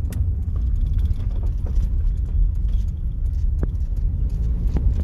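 A car driving, heard as a steady low road-and-engine rumble with a few faint clicks.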